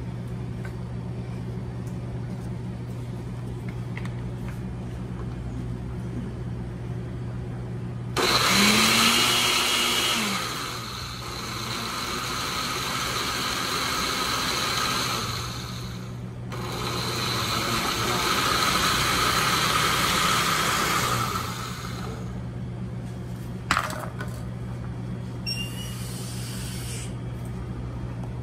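Glass countertop blender puréeing tomato, onion and green pepper with water and spices. It starts suddenly about eight seconds in and runs for about eight seconds, stops briefly, then runs again for about five seconds.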